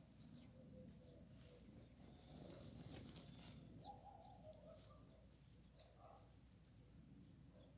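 Faint, scattered short chirps of sparrows hidden in a hedge, with a longer, lower call around four to five seconds in, over a low background rumble.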